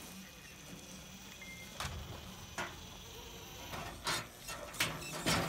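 Scale RC rock crawlers' electric motors whirring as the trucks climb over rusted car bodies, with a few sharp knocks on the metal, the loudest near the end.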